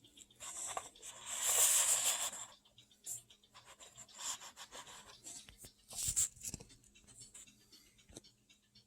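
Small resin model parts being handled: rubbing and rustling, with a longer scraping rustle about a second in and a few light clicks and taps, the loudest around six seconds in.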